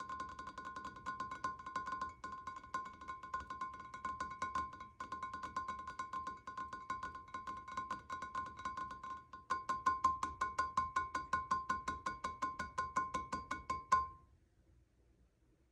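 A hand rubbing across the face of a glass block, the skin catching and slipping on the glass so that the block rings in a rapid pulsing squeak at one fixed pitch, about eight to ten pulses a second. It pauses briefly twice, grows louder in the last stretch and cuts off suddenly near the end.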